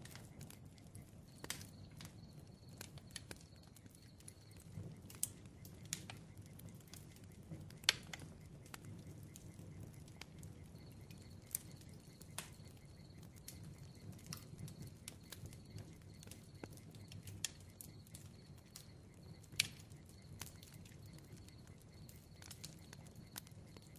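Crackling bonfire: irregular sharp pops and snaps from the burning wood over a low, steady rumble of flames.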